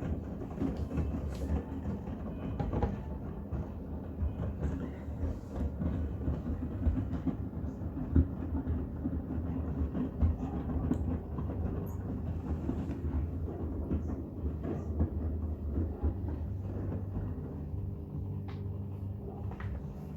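Miele WCR 870 washing machine running a Cotton wash with bath towels: a steady low hum and drum rumble with scattered soft knocks.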